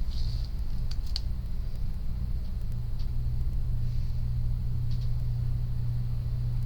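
Steady low hum with a few faint clicks over it.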